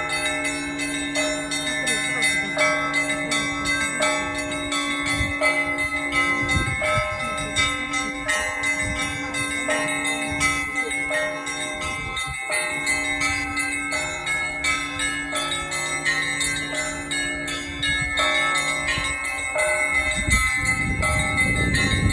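Church bells ringing a continuous peal (Orthodox-style zvon): rapid strikes on smaller bells over the long low hum of a large bell, which is struck again about every six seconds. A low rumble joins near the end.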